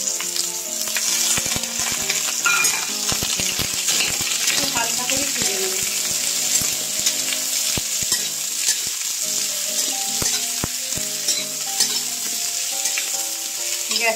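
Chunks of potato, radish, papaya, green banana and yardlong beans sizzling in hot oil in a wok, stirred with a metal spatula that scrapes and clicks against the pan.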